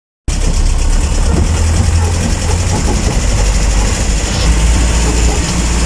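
Truck engine running with a steady low rumble.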